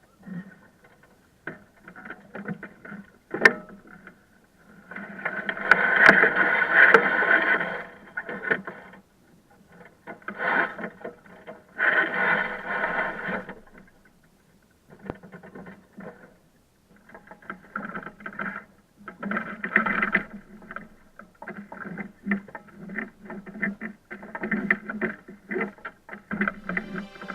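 Water and wind noise aboard a sailing yacht under way, coming in irregular surges, loudest from about five to eight seconds in.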